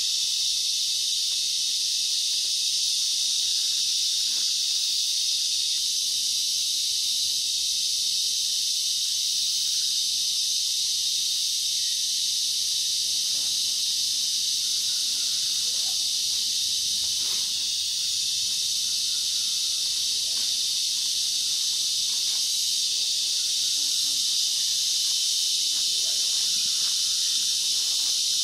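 Dense tropical forest insect chorus: a steady, high-pitched shrilling hiss that does not let up.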